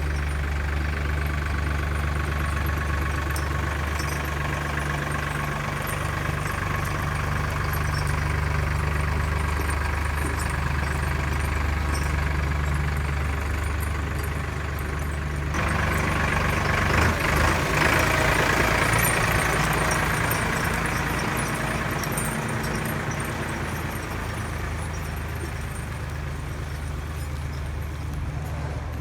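An engine running steadily, with a sudden rise in louder, hissier noise about halfway through.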